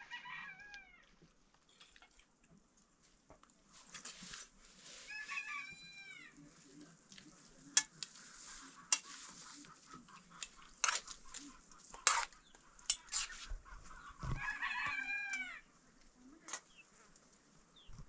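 A rooster crowing three times: at the start, about five seconds in, and near fifteen seconds. Between the crows come several sharp clinks of spoons on metal bowls.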